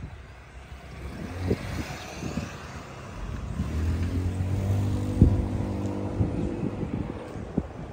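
A motor vehicle engine running with a steady hum that grows louder about three seconds in.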